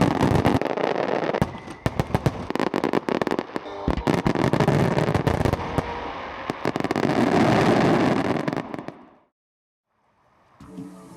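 Fireworks display: a dense run of sharp bangs and crackling over a rumbling wash of bursts, fading away about nine seconds in. Music begins just before the end.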